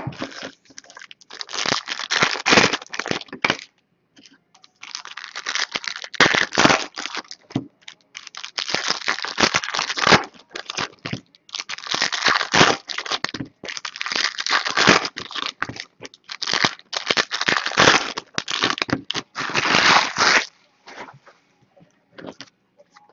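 Foil wrappers of trading-card packs being torn open and crumpled by hand. The rustle comes in about eight bursts of a second or two each, with short pauses between.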